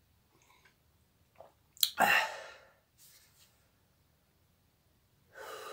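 A man sneezes once, sharply, about two seconds in. A heavy breath out follows near the end.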